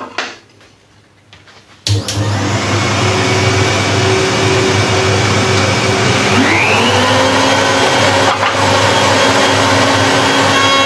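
A table-mounted router and its dust extraction switch on suddenly about two seconds in and run loud and steady as a bevel cutter chamfers the edge of a board fed along the fence. The motor's pitch rises slightly about six and a half seconds in.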